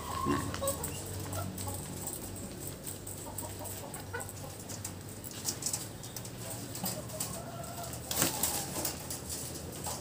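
Caged laying hens making scattered soft clucks and calls, with small clicks and rustling, and a louder rustling burst about eight seconds in.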